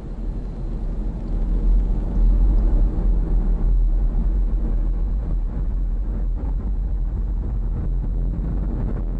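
Falcon 9 first stage's nine Merlin engines firing during ascent: a loud, deep rumble with crackle running through it, swelling about two seconds in and then holding steady.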